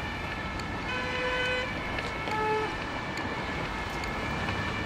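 Busy road-intersection traffic running steadily, with a short car-horn toot about a second in and a second, shorter and lower toot about two and a half seconds in.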